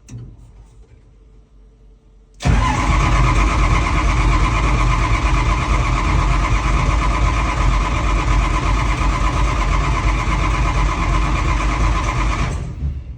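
The hard-starting 7010's engine starts abruptly about two and a half seconds in, after a quiet pause. It then runs loud and steady for about ten seconds before fading out near the end.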